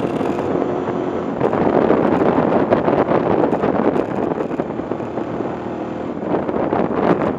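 Wind rushing over the microphone of a riding motorcycle, with its engine running steadily underneath.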